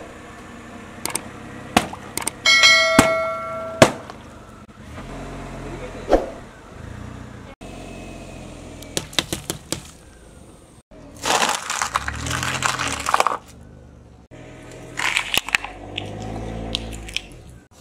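A car tyre rolling slowly over a series of objects on asphalt, crushing them. There are sharp pops and snaps with a brief ringing squeal in the first few seconds, a low rumble of the rolling tyre, and two long spells of crackling and crunching in the second half.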